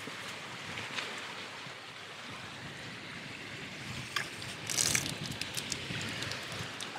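Open-air campsite shower trickling and dripping after its tap has been turned off, with a few sharp clicks and a short splash just before the middle. The leftover water in the pipe is draining out, ending in small drips near the end.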